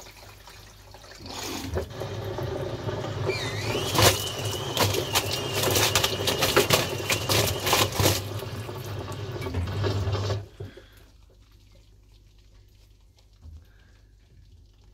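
Samsung front-loading washing machine drum turning a load of laundry in a drum overfilled with water: sloshing with repeated knocks and thumps and a thin high whine in the middle, stopping about ten seconds in.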